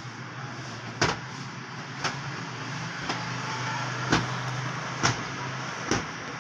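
Sharp slaps of cloth against a bed, six in all, about one a second, over a steady low hum, as bedding is beaten and straightened by hand.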